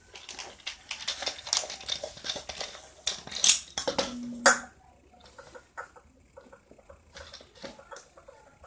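Small plastic and metal parts clicking and scraping as an LG S310 mobile phone is handled and taken apart, its screws being removed; the clatter is busiest in the first half and thins to light ticks later. A brief low buzz sounds about four seconds in.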